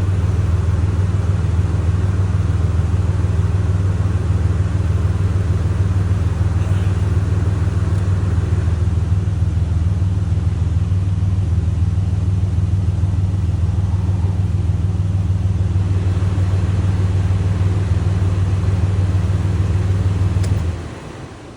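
2006 Chevrolet Impala running, a loud, steady low rumble that cuts off near the end.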